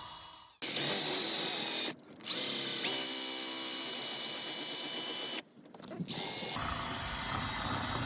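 Electric drill running with its bit against plastic interior trim, cutting and melting a groove for a wire. It comes in three stretches of steady whine, with abrupt breaks between them.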